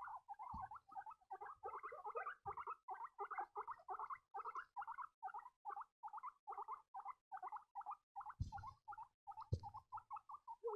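Baby guinea pigs squeaking in a fast, regular series, about three to four short squeaks a second, with a few dull thumps in between.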